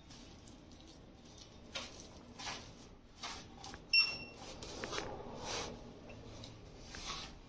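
A hand kneading and squishing grated boiled banana with flour and spices in a steel plate: soft, irregular rustling strokes, with a brief metallic ringing clink about four seconds in.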